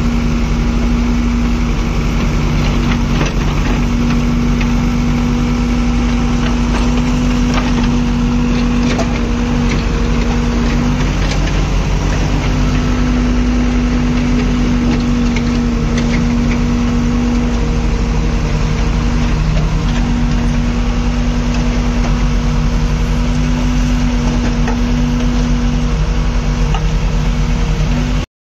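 JCB backhoe loader's diesel engine running at a steady speed while it works the backhoe arm, digging soil and loading it into a tipper truck. Scattered clicks and knocks of soil and stones sound over the engine, mostly in the first half.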